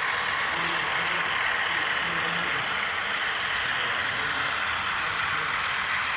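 Model freight trains rolling past on a layout, a steady whirring rolling noise with a faint low hum underneath.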